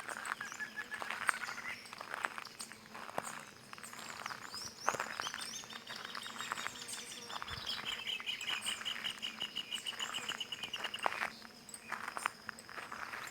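Several wild birds calling and chirping over a busy background of short chirps and clicks. About five seconds in, one bird starts a long, rapid trill of evenly repeated high notes, which stops about six seconds later.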